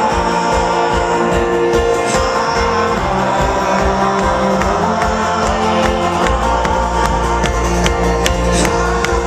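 Live folk-rock band playing an instrumental passage: sustained guitar and string chords over a steady kick-drum beat, with the bass filling in heavily about six seconds in.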